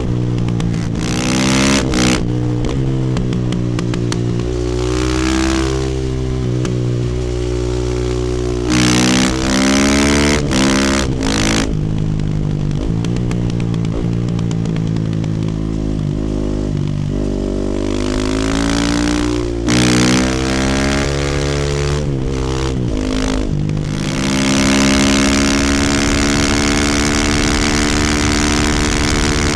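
2018 Husqvarna FE450 supermoto's single-cylinder four-stroke engine through an Akrapovic exhaust, accelerating and shifting through the gears while riding. The pitch rises and drops back several times, then holds steadier near the end.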